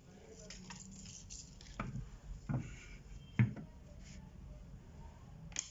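Light handling noise: a few scattered knocks and clicks as the DVR's data and power cables and parts are picked up and set down, over a faint low hum.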